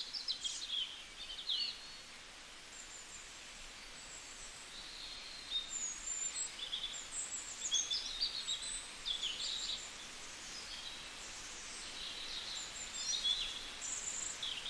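Birds chirping and whistling: many short, high calls, some gliding, scattered throughout over a faint hiss.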